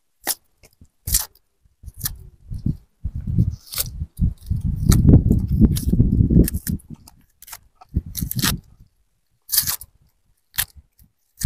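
A red onion being trimmed and peeled by hand with a small knife: a run of short crisp clicks and crackles from the knife and the papery skin. Low rumbling noise comes and goes, loudest around the middle.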